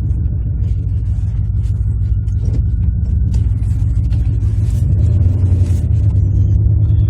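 Farm vehicle engine running with a steady low rumble, growing a little louder about five seconds in, with light rattles over it.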